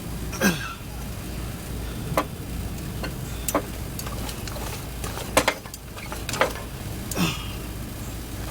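Scattered sharp clicks and knocks, about six of them, a few trailed by short falling squeaks, over a steady low hum.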